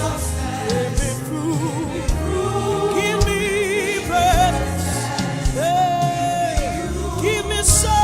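Live gospel worship music: voices singing long, wavering held notes over a band with bass and drum strikes.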